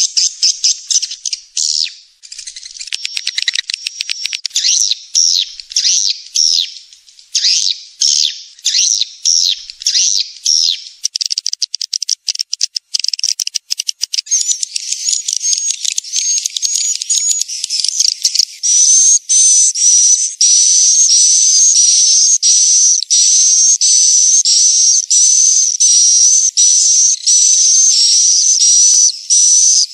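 Swiftlet calls from a lure recording used to call swiftlets into a nesting house: rapid, high twittering chirps, which about two-thirds of the way through give way to a steady loop of high whistled chirps over a hiss, about one a second.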